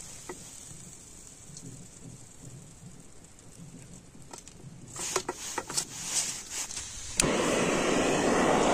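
Light clicks and rustles as fried pakoras are handled on a newspaper-lined steel plate, then, about seven seconds in, a sudden steady hiss from the pan on the camp gas stove.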